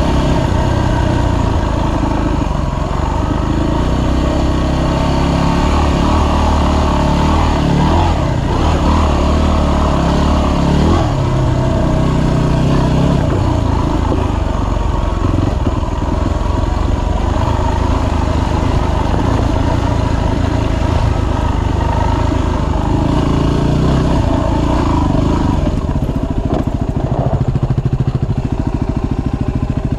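Dirt bike engine running on a dirt trail ride, its pitch rising and falling with the throttle as the rider accelerates and eases off.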